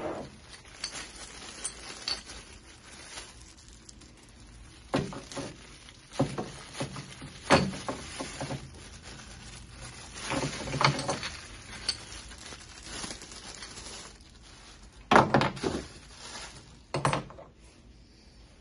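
Plastic packing bag rustling and small metal parts (a handle rod and screws) clinking and knocking as they are unwrapped and handled, in irregular bursts with the loudest knocks about two-thirds of the way through.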